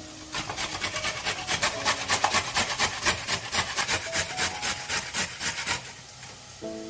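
Rhythmic rasping strokes on a wooden cutting board, about five a second, stopping shortly before the end: food being worked by hand during kitchen preparation.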